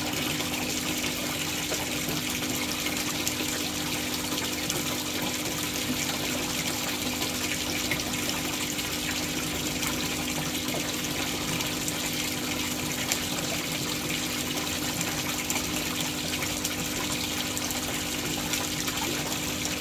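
Steady splashing rush of water pouring into a koi pond, with a low steady hum underneath.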